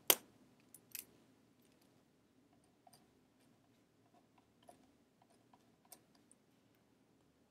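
A sharp click just after the start and another about a second later, then faint small taps and scratches of a pen writing on paper.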